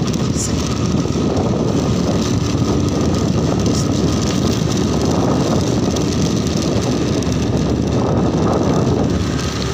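Motorcycle underway: steady engine and road noise, with wind rumbling on the microphone.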